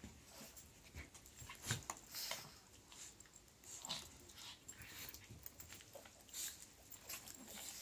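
A Jack Russell terrier and a pug play-fighting on a blanket: short, irregular breathy dog noises and scuffling in quick succession.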